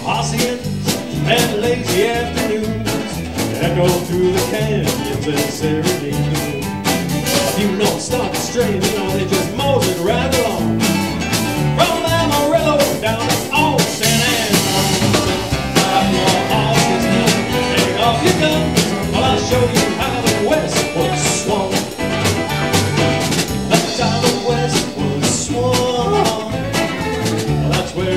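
A live country band plays an instrumental passage on fiddle, acoustic and electric guitars, electric bass and drum kit, with a steady drum beat.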